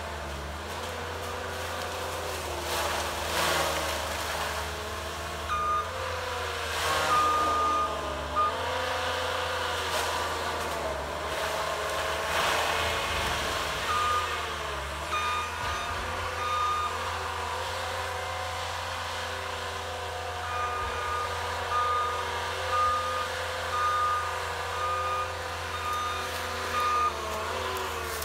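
ASV RT120F tracked carrier's diesel engine running under load, its pitch dipping and recovering several times as the Diamond Mowers disc mulcher head shreds pine saplings, with brief bursts of crashing and shredding. A backup alarm beeps in repeated runs from about five seconds in.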